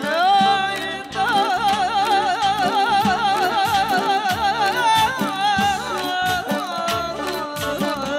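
Azerbaijani folk song performed live: a male voice holds a long melismatic phrase with fast quavering ornaments, then falls away in a descending run, over a band keeping a steady drum beat.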